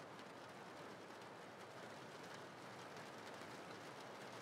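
Faint, steady rain.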